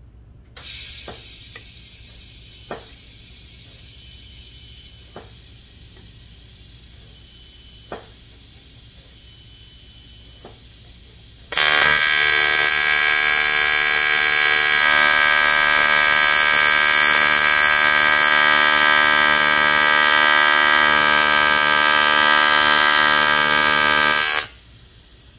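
TIG welding arc buzzing loud and steady for about 13 seconds, starting suddenly about halfway through and cutting off abruptly about a second before the end, as a tack weld is laid on thick steel. Before it, only a faint hiss with a few sharp clicks.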